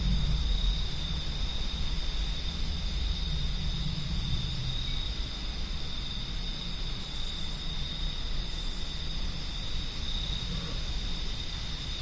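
Night wind blowing, a low rumble that is strongest at the start and slowly eases off. Under it runs a steady, unbroken high-pitched chirring of night insects.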